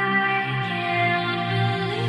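Background music: held synth tones layered over a low bass line, with a brighter upper layer coming in at the start.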